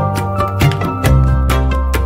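Background music with a quick, steady percussive beat over a bass line and melody.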